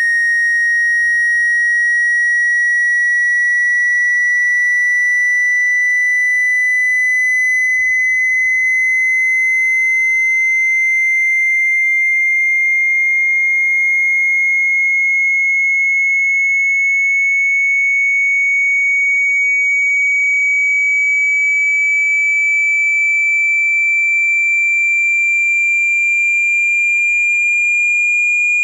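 Speaker water-ejection tone: a single loud, pure, high-pitched tone that rises slowly and evenly in pitch. It is played at full volume so the phone's speaker vibrates trapped water out.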